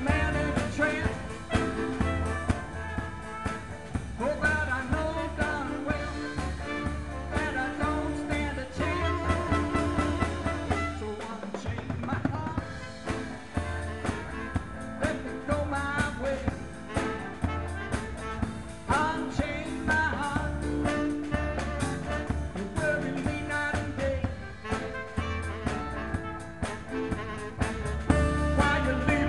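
A live band playing a popular song, with a man singing into a microphone and accompanying himself on guitar. The low notes drop out for a moment about a third of the way through.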